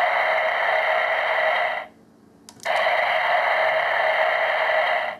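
Electronic sound effect from a Kyoryuger toy's speaker playing the Deinosgrander Zyuden Battery's sound: a steady, noisy electric effect that stops about two seconds in. After a click it starts again and runs about two and a half seconds more.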